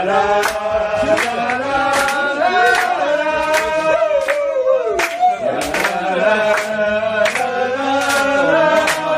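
Many voices singing an ondo-style Japanese folk-song chorus together, with hand claps about twice a second keeping the beat.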